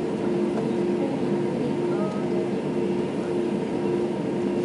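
Steady cabin noise inside an Airbus A321 taxiing to the gate: an even rumble and hiss with a constant hum from the idling engines and the air conditioning.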